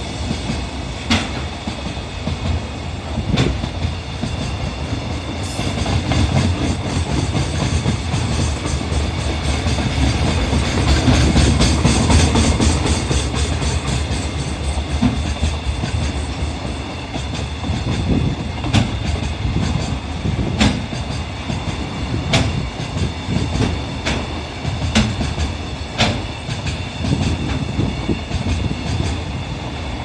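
Container flat wagons of an electric-hauled freight train rolling past at speed: a continuous low rumble with intermittent sharp clacks as the wheels cross rail joints.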